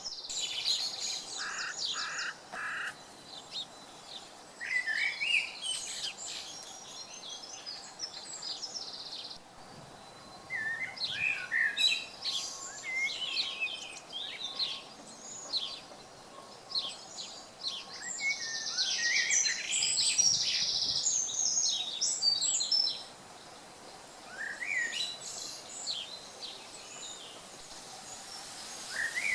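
Woodland birdsong: several songbirds singing in turn, with chirps, fast trills and short repeated phrases, over a faint steady hiss.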